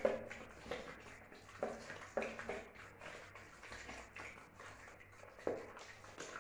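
Puppies eating kibble from a shared plate on a terrazzo floor: irregular small taps and clicks of mouths and food against the plate. The strongest taps come right at the start and about five and a half seconds in.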